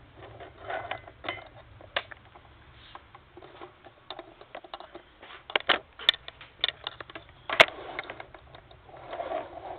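Handling noise from a tripod and camera being adjusted: irregular clicks and knocks, with the sharpest knock about three-quarters of the way through.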